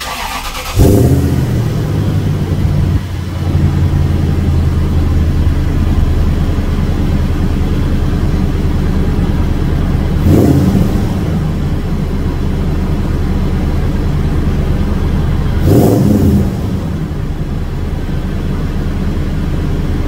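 2001 Toyota Sequoia's 4.7-litre V8, fitted with new JBA headers that cure its exhaust leaks, catches under a second in and settles to a steady idle at the tailpipe. The throttle is blipped twice in short revs, about ten and sixteen seconds in.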